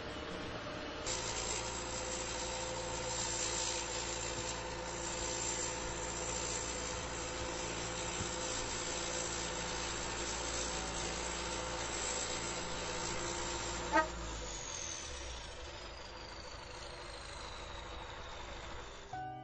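A heavy vehicle engine running steadily. About two-thirds of the way through there is a sharp click, the engine note stops, and a high whine falls slowly in pitch as it winds down.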